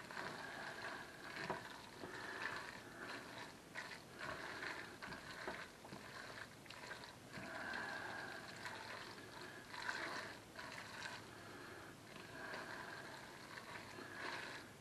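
A utensil stirring thick macaroni and cheese in a stainless steel pot: quiet, irregular scraping and sticky mixing sounds.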